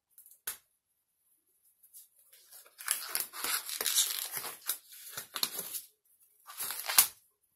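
Nitrile gloves being pulled onto the hands: a run of crinkling, stretching rustles for about three seconds, then a shorter burst ending in a sharp snap.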